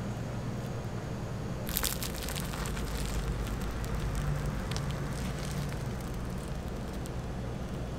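Crisp-crusted waffle torn apart by gloved hands: its crust crackling and crunching, sharpest about two seconds in, then smaller crackles, over a steady low hum.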